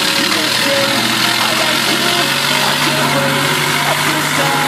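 Diesel engine of a heavily loaded six-wheel-drive logging truck running steadily under load as it crawls up a muddy forest track, blowing dark exhaust smoke.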